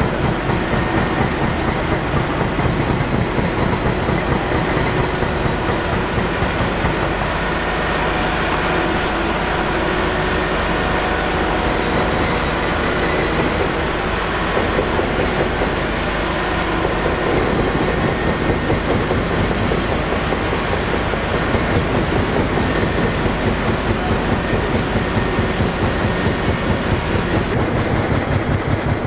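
Heavy diesel engine running steadily, with a rapid, even pulse.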